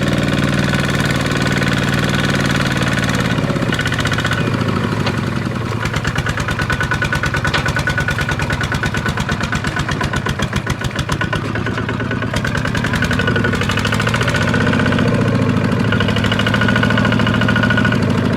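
Walking tractor's single-cylinder diesel engine running under load with a loud, even knocking beat. About six seconds in the beat slows and becomes more distinct, and it picks up again after about twelve seconds.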